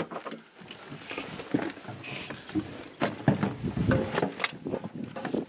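Rustling and knocking from a handheld camera being carried and jostled against clothing, with footsteps crunching through dry brush.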